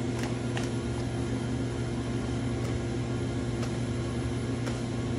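Steady low mechanical hum of commercial kitchen machinery, with a few soft slaps as hand-tossed pizza dough is flipped and slapped between the hands.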